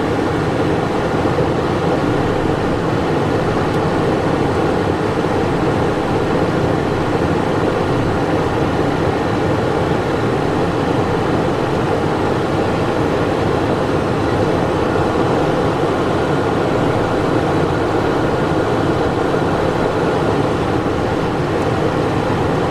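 Steady cockpit noise of a Cessna Citation Encore on final approach in landing configuration: the airflow rush and hum of its twin turbofan engines, with a faint steady high whine.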